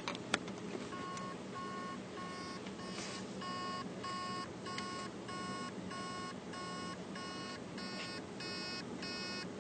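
Hard drive beeping faintly about twice a second as its spindle motor tries and fails to spin up the platters, most likely because the heads are stuck on a platter, or else a seized bearing. Two sharp clicks open it as the drive is plugged in.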